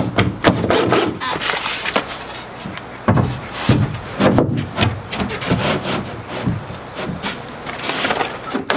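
Rough-sawn pine boards being handled: irregular wooden knocks and scraping as a board is slid along and set in place on top of the board wall.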